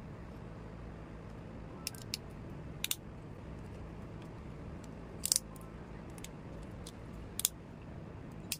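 Small plastic Gundam model kit parts clicking as they are pressed and snapped together by hand: a handful of short sharp clicks, several in quick pairs, over a faint steady hiss.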